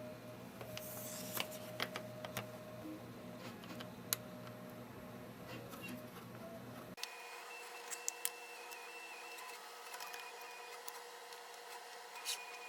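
Faint, scattered small clicks of a precision Phillips screwdriver turning out tiny 1.6 mm screws from the logic board of an iPod Touch 5th generation, over a faint steady hum.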